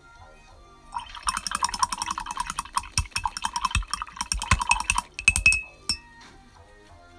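Paintbrush being swished in a glass jar of rinse water, rattling and clinking rapidly against the glass. It starts about a second in and ends with a few harder knocks after about four seconds.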